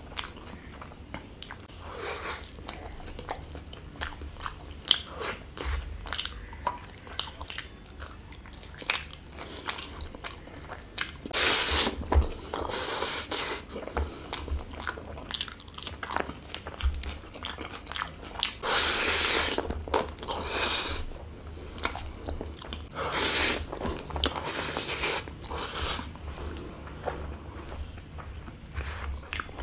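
Close-miked eating by hand: wet chewing and mouth sounds, with the squish and scrape of fingers gathering and mixing rice and curry on a banana leaf, several longer scraping rushes in the second half.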